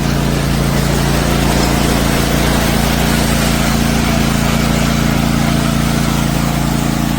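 Riding lawn mower engine running at a steady speed, with no change in pitch.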